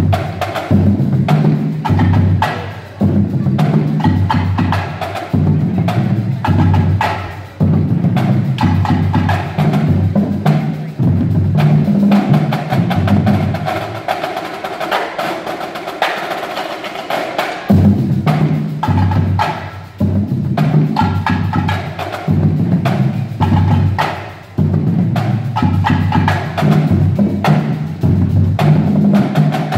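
A high school marching drumline of snare drums, multi-drum tenors and a line of marching bass drums playing a fast, dense percussion piece. For a few seconds around the middle the bass drums drop out, leaving the snares and tenors, before the full line comes back in.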